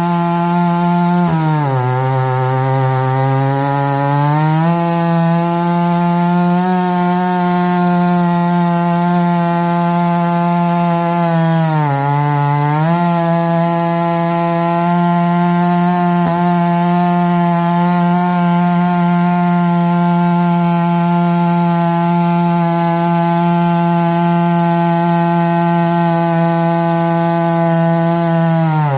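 Stihl MS661C two-stroke chainsaw running at high revs while ripping through a pine log on an Alaskan chainsaw mill. Its pitch sags and recovers twice as it bogs under load, for a few seconds about a second in and briefly around twelve seconds in, then drops again at the very end.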